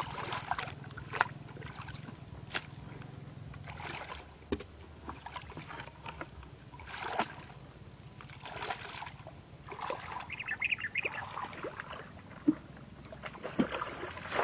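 Shallow muddy water splashing and sloshing in short irregular bursts every second or two, with a few sharp knocks, as someone wades through it and works a long wooden pole in the water.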